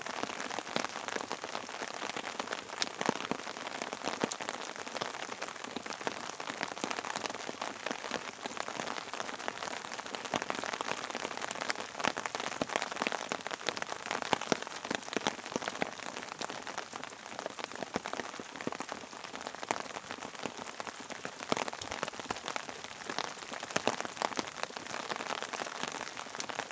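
Steady rain falling, an even hiss dotted with many sharp ticks of drops.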